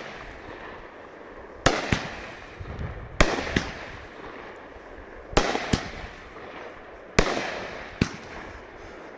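200-gram consumer firework cake (golden willow mines to big colour breaks) firing shot after shot: sharp bangs about every two seconds, several in close pairs, each followed by a fading rush of noise from the burning stars.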